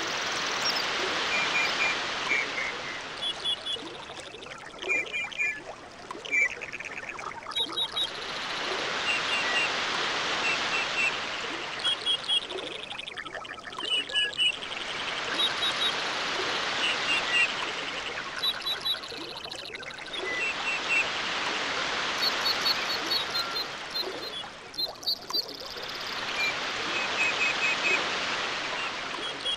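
Tropical island ambience: waves washing in and drawing back, swelling and fading about every six or seven seconds, with birds chirping in short repeated calls throughout.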